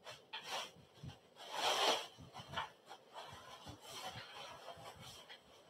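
Clear plastic packaging wrap crinkling and rustling as it is pulled off a metal bassinet frame bar, in irregular bursts, loudest about two seconds in.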